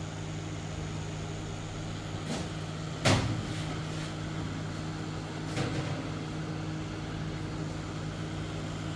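Opened-up microwave oven running with a steady low hum, with a short knock about three seconds in and a fainter one near six seconds.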